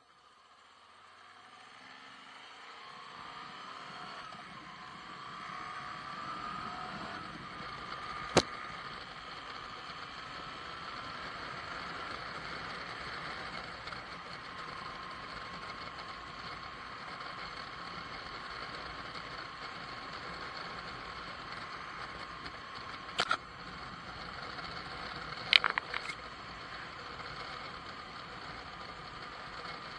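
Moto Guzzi V85 TT's transverse V-twin engine and the wind noise of riding, rising in pitch and loudness over the first several seconds as the bike gathers speed, then steady cruising in sixth gear at about 95 km/h. A sharp click about eight seconds in and two more near the end.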